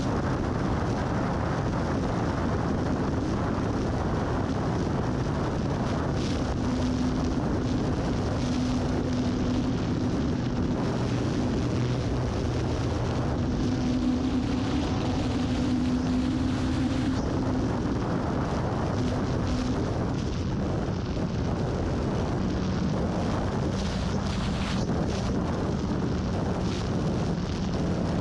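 Wind rushing over a GoPro mounted under an E-flite Carbon Cub S2 RC plane in flight, with the low hum of its electric motor and propeller underneath, dropping in pitch in the last third.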